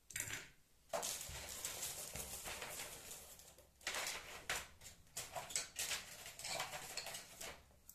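Rustling and light clattering as parts are rummaged through in a kit box, with short irregular knocks and a brief pause in the middle.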